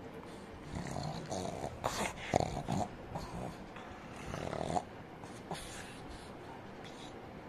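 A pug play-biting a person's hand, making a run of short breathy snorts and growly sounds in irregular bursts, loudest about two and a half seconds in.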